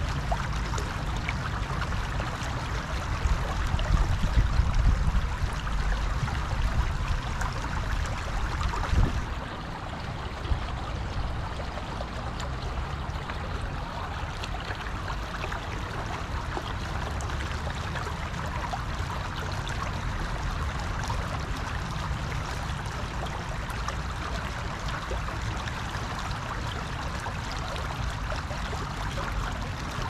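Shallow, fast-running river rushing and rippling steadily over a submerged branch. A low rumble underneath, strongest in the first nine seconds or so, drops away about nine seconds in.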